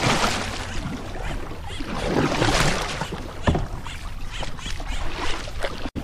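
Kayak paddle strokes through shallow weedy water: a splashing swish from the blade about every two and a half seconds, over a steady low rumble.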